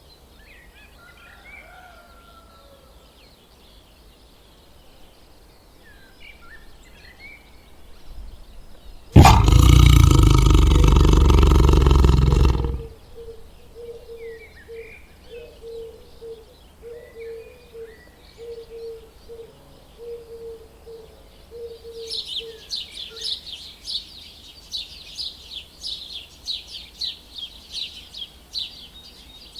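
A loud, deep animal call lasting about three and a half seconds, starting about nine seconds in, over faint bird chirps. From about two-thirds of the way through, small birds chirp fast and densely.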